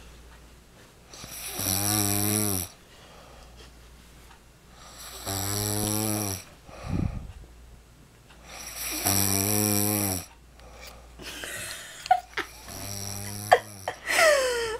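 A man snoring in his sleep, one long snore on each breath about every four seconds, four in all, the last one weaker. Near the end come two sharp clicks and a short sound that falls in pitch.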